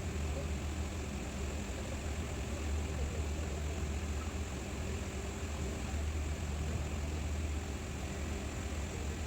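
A machine running with a steady low hum that does not change in level or pitch.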